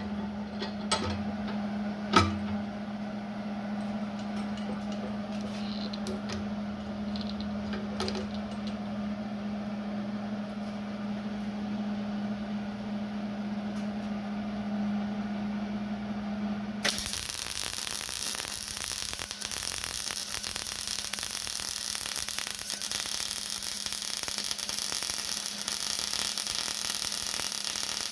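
Electric grinder running steadily against the steel of a welded control lever, grinding the weld flat. About 17 seconds in, the sound turns much brighter and hissier as the grind bites harder.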